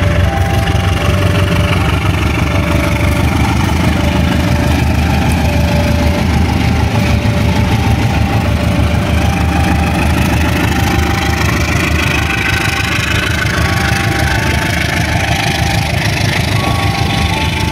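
Diesel-electric locomotive's engine running as it passes close by, a steady heavy rumble, followed by the passenger train rolling past.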